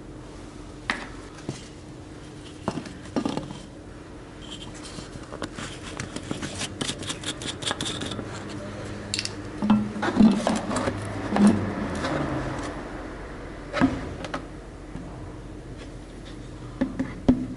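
Metal tools and parts clinking and knocking as they are handled, with a quick run of light ticks a little before halfway.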